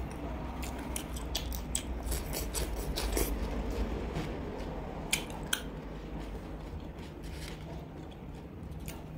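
Close-miked eating sounds from roasted duck: fingers handling and tearing the glazed pieces, a run of crisp clicks and crackles that thins out after the two sharpest clicks, about five seconds in, over a low steady hum.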